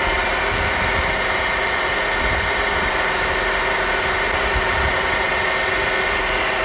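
Sharp LMV-50 vertical milling machine running, a steady mechanical whir with an even high whine.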